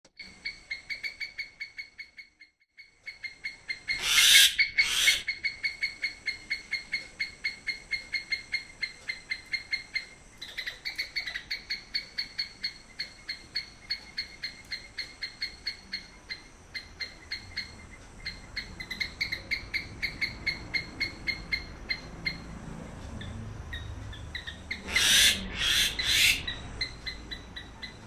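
Common myna calling: long runs of quick repeated notes, about four or five a second, broken twice by loud harsh squawks, once about four seconds in and again near the end.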